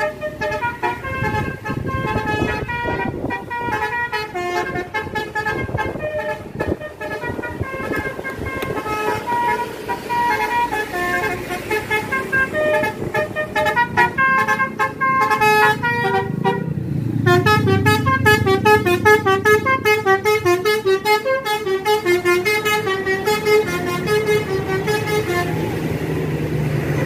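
Multi-tone telolet horn of a tour bus playing a tune in quick stepped notes, switching about two thirds of the way in to a rapid trill of alternating notes. A low rumble runs underneath, louder during the trill.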